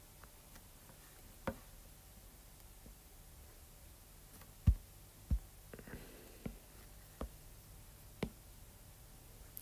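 Stylus tapping and clicking on a drawing tablet: scattered faint clicks, with two louder low knocks about halfway through, over quiet room tone.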